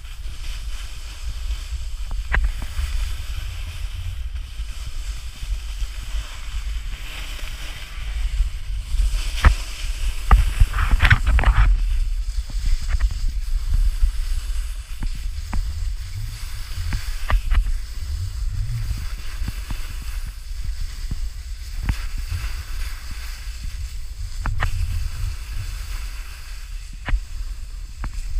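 Wind rumbling over a GoPro's microphone while a snowboard slides down the piste, its edge scraping and hissing over the snow. A louder scrape swells about ten seconds in, and sharp clicks and knocks are scattered throughout.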